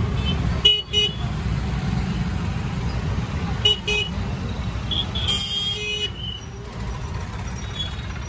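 Busy street traffic heard from a moving rickshaw: a steady low road rumble with vehicle horns tooting, a short double toot about a second in, another just before four seconds, and a longer honk from about five to six seconds.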